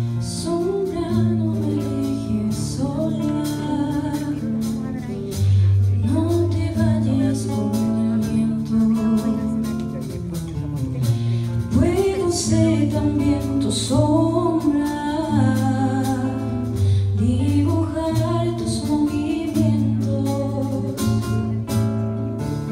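Live song: a woman's solo voice singing a melody over a fingerpicked classical guitar, with scattered light strokes from a wooden drum and cymbal.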